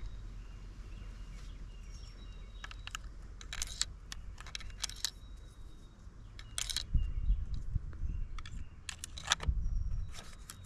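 Handling of a Remington Nylon 66 .22 rifle: a scattered series of sharp plastic-and-metal clicks and knocks, with some low rumbling handling noise in the second half.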